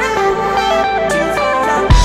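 Background music: a picked melody of single notes, with a louder, bass-heavy beat cutting in just at the end.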